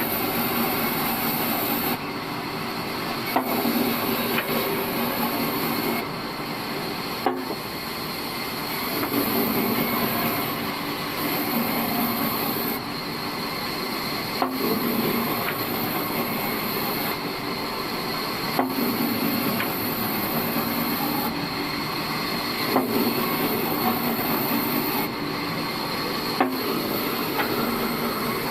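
Old bandsaw sawmill running and cutting through a dry log, a steady machine noise that swells and eases every few seconds, with a steady high whine and a few sharp knocks.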